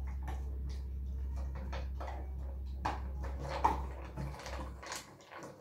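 German Shepherd puppy eating dry food mixed with crushed egg from a stainless steel bowl: irregular clicks and smacks of chewing and of food against the metal bowl. Under it runs a steady low hum that stops about four and a half seconds in.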